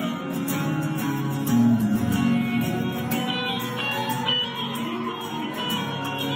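Acoustic guitar strummed and picked in a live solo performance: an instrumental passage with little or no singing.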